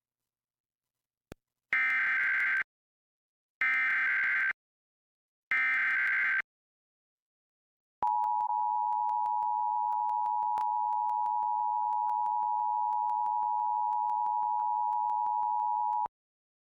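Emergency Alert System Required Monthly Test header: three short bursts of SAME digital data tones, each just under a second and about two seconds apart, followed by the EAS two-tone attention signal (853 and 960 Hz together), a steady dual tone held for about eight seconds and then cut off.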